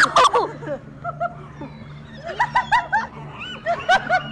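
Women laughing after a scare: a few short bursts at the start, then a quick run of 'ha-ha' syllables about two seconds in and more laughter near the end.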